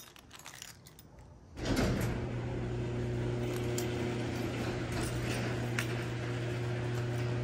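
Electric garage door opener starting up about a second and a half in and running with a steady hum as the sectional garage door rolls up its tracks, with a few light clicks along the way.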